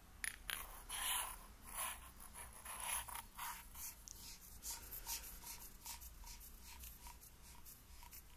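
Sofirn SD05 diving flashlight's aluminium head and body being screwed together by hand: metal threads scraping and clicking with each turn. The scrapes are loudest over the first few seconds, then fade to a fainter, regular run of ticks.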